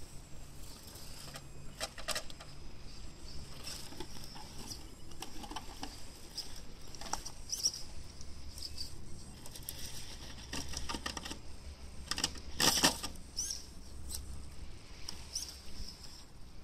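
XR10 RC rock crawler picking its way down a rock crack: its electric motor whines in short spurts while the tyres and chassis knock and scrape on the granite, with the loudest clatter about three-quarters of the way through.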